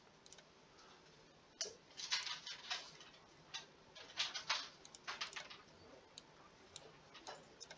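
Faint, irregular clicking and tapping from a computer pointing device, in small clusters, as on-screen settings are clicked and adjusted.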